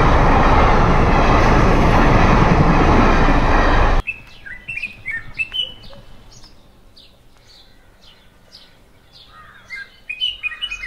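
A passenger train passing close by, a loud steady noise that cuts off abruptly about four seconds in. Then small birds chirping, many short high notes, busiest near the end.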